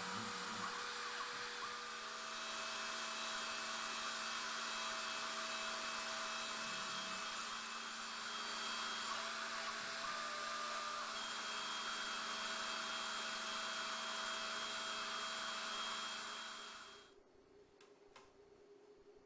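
MITS Auto Lab PCB milling machine running, a steady motor whir with a few tones that switch on and off as it works. It winds down and stops about seventeen seconds in.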